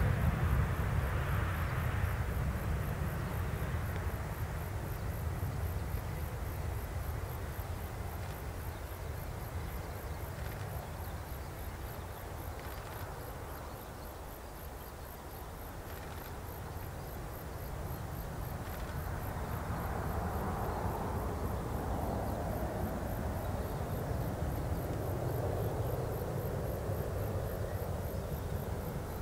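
Airbus A321 jet engines rumbling as the airliner climbs away. The rumble fades over the first half, then swells slightly again. Crickets chirp steadily and faintly in the background.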